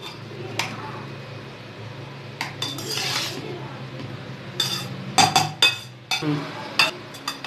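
Metal slotted spatula scraping and clinking against a steel bowl as it tosses and mixes cooked rice. It makes irregular scrapes, with several sharp clinks in the second half.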